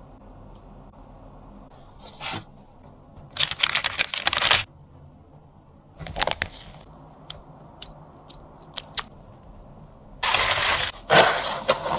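Bursts of crisp crunching and crackling: a short one about two seconds in, a long dense one from about three and a half to four and a half seconds, another about six seconds in, a few sharp clicks after that, and a loud burst starting about ten seconds in.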